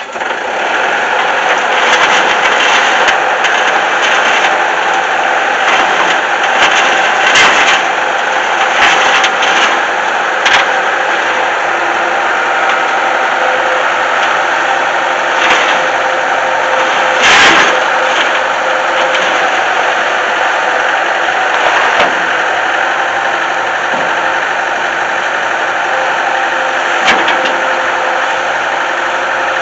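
An engine running steadily at an even speed, with scattered sharp clanks and knocks.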